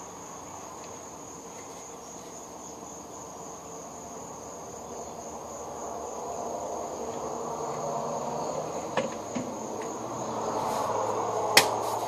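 Crickets chirring in a steady high trill, with a broad lower noise swelling up over the second half. A couple of small clicks come about three-quarters of the way in, and one sharp click comes near the end.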